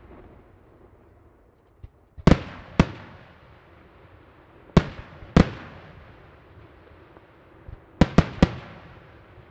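Aerial firework shells bursting in the sky: seven sharp booms, in two pairs and then a quick triple near the end, each trailing off in a rolling echo.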